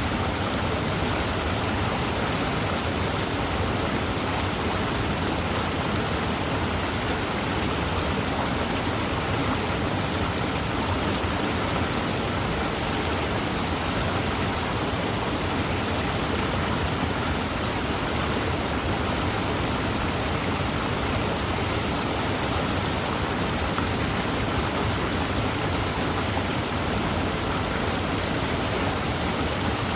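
Fast-moving river flowing: a steady, even hiss of running water with no breaks or single events.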